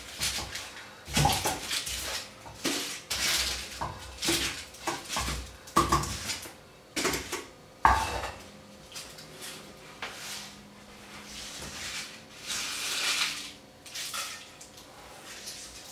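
Peeled onions set down one after another into a stainless-steel colander, a string of sharp metallic knocks over the first half. After that, the softer crackle and rustle of dry onion skins being peeled off.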